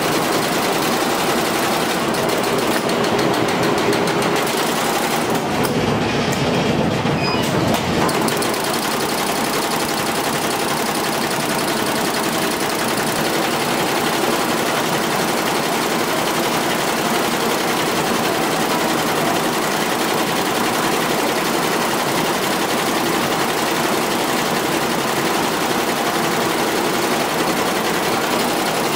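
Multi-head computerized Jintel embroidery machine running, its many needle heads stitching at once in a steady, rapid mechanical clatter.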